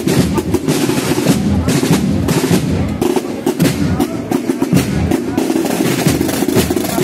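Procession band (banda de música) playing a march, with snare drum rolls and bass drum prominent over the band, and crowd voices.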